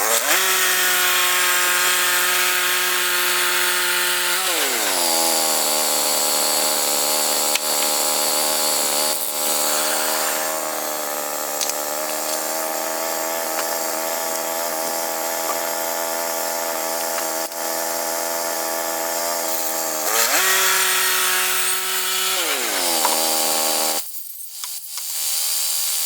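Woodland Mills HM122 band sawmill's gas engine running at full throttle, its pitch dropping after a few seconds as the band blade bites into the log and holding lower under load through a long cut. Near the end the pitch rises again as the blade clears the log, then falls as the engine is throttled back.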